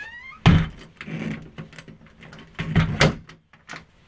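A door being handled: a loud thump about half a second in, then further knocks and rattles, with a heavier pair around three seconds in.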